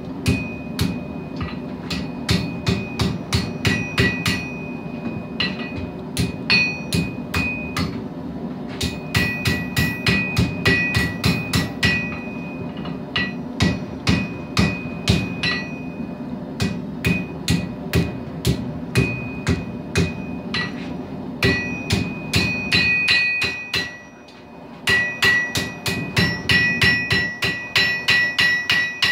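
Hand hammer striking hot steel on an anvil, about three blows a second in runs with short pauses. Each blow leaves a bright metallic ring, under a steady low background noise that drops out briefly near the end.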